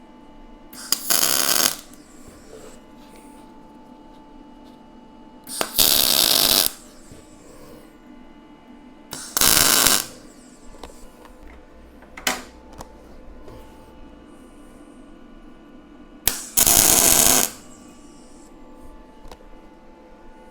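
Four short bursts of welding arc on steel, each about a second long, spaced several seconds apart: individual tack welds being laid. A single short click comes near the middle, over a faint steady hum.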